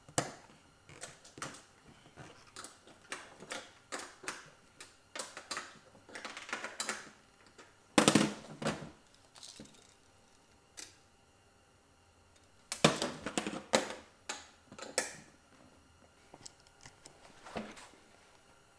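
Irregular clicks, taps and knocks of small metal hardware and parts being handled at a workbench, with two longer, louder stretches of noise about 8 and 13 seconds in.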